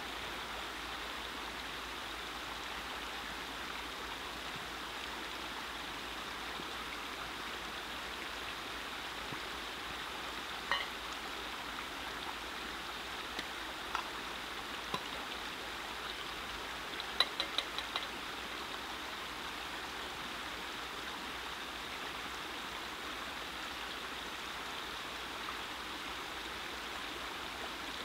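Small stream running steadily over rocks. A few light clinks sound about 11 s and 14 s in, then a quick run of about five clinks around 17 s, from a metal pot being handled and dipped at the water's edge.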